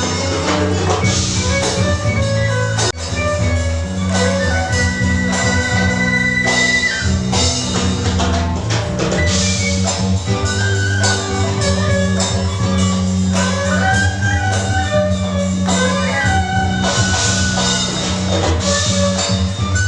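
Instrumental music with sustained bass notes, melodic lines and a steady beat of drums or percussion.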